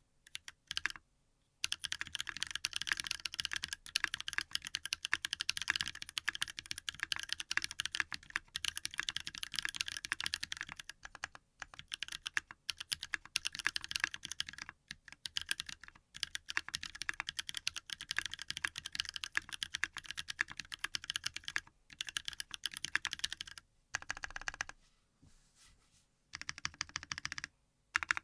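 Fast typing on an LSJ Ares mechanical keyboard fitted with Krytox-lubed OG Holy Panda tactile switches, a brass plate and PBT keycaps. It is a steady stream of quick keystrokes, broken by a few short pauses and a longer one near the end.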